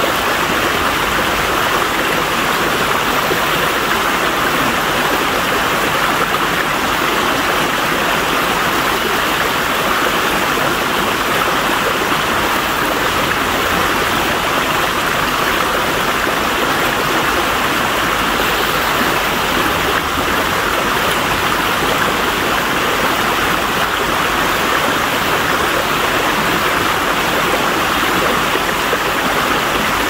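River water flowing steadily, an even, unbroken rush of water.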